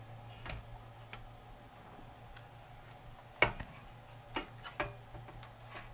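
Scattered light clicks and taps as an amplifier's circuit board and wiring are handled and seated in its metal chassis; the sharpest click comes about three and a half seconds in. A faint steady low hum sits underneath.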